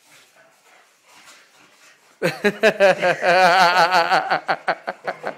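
Dogs play-fighting, with claws clicking and scuffling on a tile floor. About two seconds in, one dog starts a loud, wavering vocal noise whose pitch rises and falls for nearly three seconds.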